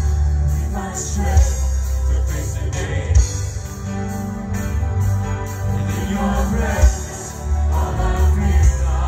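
Live worship band playing a song: a male lead singer over Korg keyboard, electric guitar and a heavy bass line, with sung phrases coming and going.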